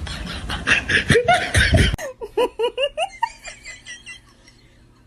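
A person laughing: hearty, breathy laughter that turns into a run of short giggles about two seconds in and trails off to quiet by about four seconds.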